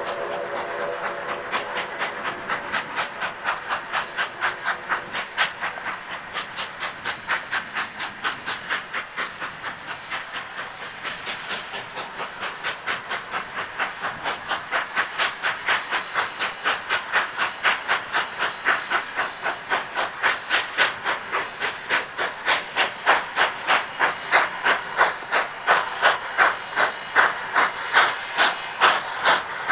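Cumbres & Toltec narrow-gauge steam locomotive working hard, its exhaust chuffing steadily at about two to three beats a second and growing louder as it approaches. The tail of its steam whistle fades out at the start.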